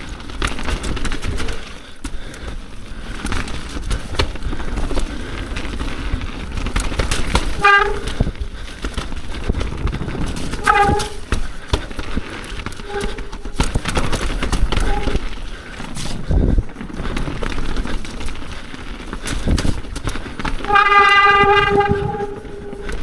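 Mountain bike descending a rough, wet trail: steady tyre and chassis rattle with knocks from roots and rocks. The wet disc brakes squeal in short honking bursts, once about 8 s in and again about 11 s in, then in a longer howl near the end.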